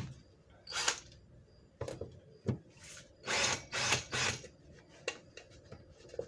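Cordless drill-driver spinning in several short bursts as it backs out the cover screws of a molded-case circuit breaker to open it.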